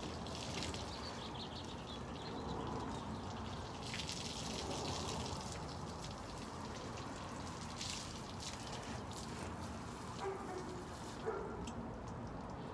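Water from a hose spraying and splashing onto a car body in several spells of hiss, over a steady low background rumble; a short click near the end.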